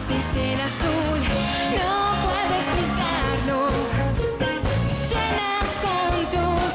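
Live pop-rock band with a woman singing the lead vocal over a steady drum beat.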